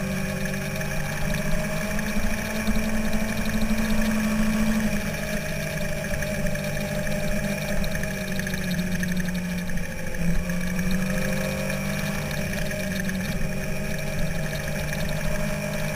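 On-board sound of a sportbike's inline-four engine running at steady cruising revs, with wind and road noise over it. The engine note shifts a little in pitch and dips briefly about ten seconds in before carrying on.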